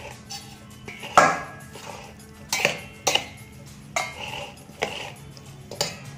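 Steel spatula scraping through oily spiced amla pieces and knocking against a stainless steel bowl as the pickle is mixed, with about six irregular clinks. The loudest comes about a second in.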